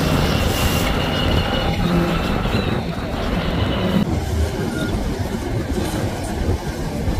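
Motorboat engines running at speed over choppy water, with the rush of spray and wind. The sound changes abruptly about four seconds in.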